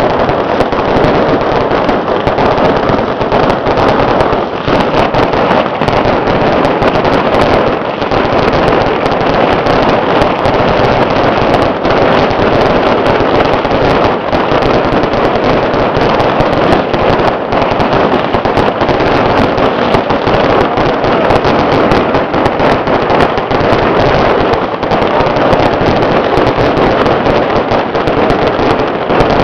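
Massed firecrackers going off without a break, countless small bangs running together into one loud, steady crackle.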